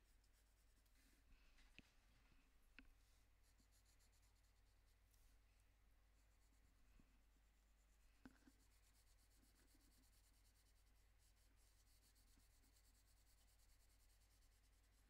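Very faint scratching of a Prismacolor Premier colored pencil shading on Fabriano toned paper, with a few small ticks of the pencil against the paper.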